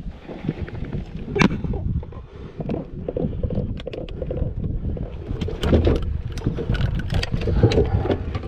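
Wind buffeting the microphone in an uneven rumble, with scattered knocks and clunks of handling and gear in a fishing boat.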